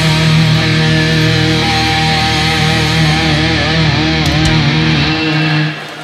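Heavy metal band playing live: distorted electric guitars hold a ringing chord, with a wavering note over it, and the music cuts off abruptly near the end as the song finishes.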